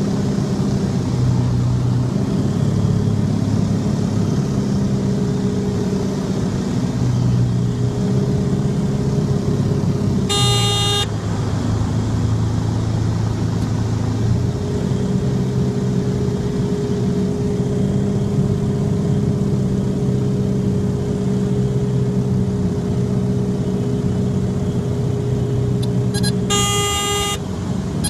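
Single-engine light aircraft's propeller engine droning steadily inside the cockpit during approach and landing, its note dropping lower for a few seconds about ten seconds in. A high cockpit warning horn sounds twice: briefly about ten seconds in and again for about a second near the end, just before touchdown.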